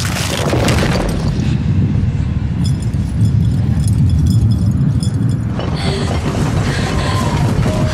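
Deep, steady low rumble of a TV drama's ominous sound design, with a short hiss in the first second and faint thin high tones coming in about three seconds in.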